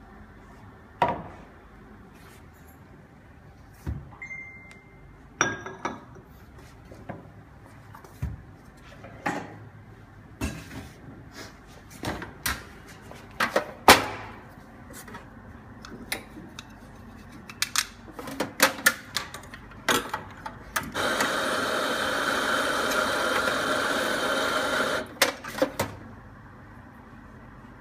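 Scattered knocks and clinks of a metal espresso portafilter being handled and knocked at the bar, the loudest sharp knock about halfway through. Then an espresso grinder runs steadily for about four seconds, dosing fresh grounds into the portafilter.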